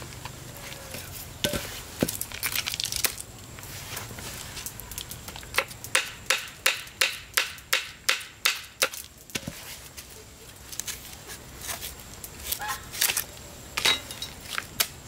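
Chopping: a run of about a dozen sharp, evenly spaced strikes, roughly three a second, a little after the middle, with scattered knocks and rustling before and after.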